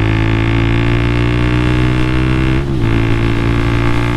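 Motorcycle engine pulling steadily while riding, its note creeping slowly upward. About two and a half seconds in, the note briefly dips and picks up again.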